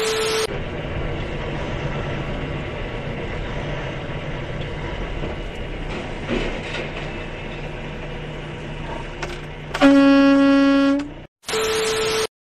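Static-noise glitch transition with a steady beep at the start and again near the end. Between them runs steady traffic noise with a low engine hum, and about nine seconds in a vehicle horn sounds one loud, held note for just over a second.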